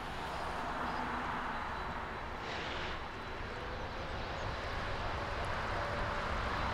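Four jet engines of a Boeing 747 freighter running at taxi power: a steady jet roar that slowly grows louder, with a faint steady engine whine underneath.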